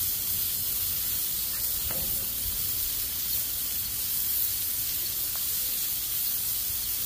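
Raw beef patties sizzling on a hot flat-top griddle: a steady, high hiss.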